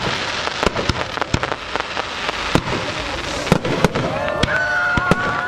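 Fireworks display: aerial shells going off in a string of sharp bangs over a crackling hiss. Near the end, high whistles that glide in pitch join the bangs.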